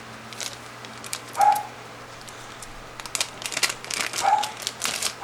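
Pet dogs barking in the background, two short barks about a second and a half and four seconds in. Between them and after, a run of quick clicks and rustles from small items being handled.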